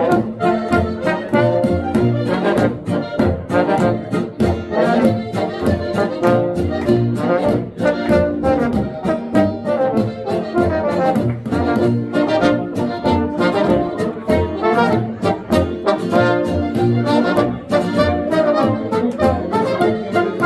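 Live Bavarian folk brass band playing a Boarischer dance tune. Brass horns carry the melody over a tuba bass with a steady oom-pah beat, while guitar and button accordion keep the rhythm.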